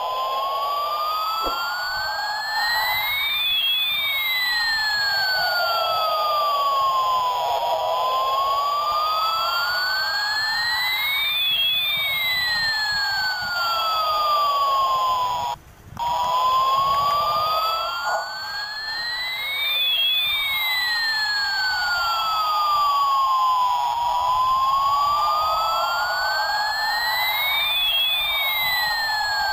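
Electronic siren wail: a tone slowly rising over about four seconds and falling again over the next four, repeating over and over with a steady hum beneath it. It breaks off for a moment about halfway through, then carries on.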